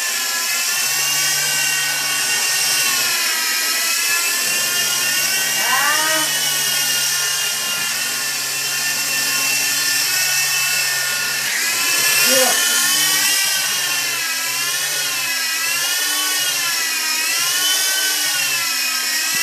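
SKY WOLF toy RC helicopter flying: its small electric motors whine steadily over the hiss of the spinning rotors, the pitch wavering up and down as the throttle is worked, most plainly in the second half.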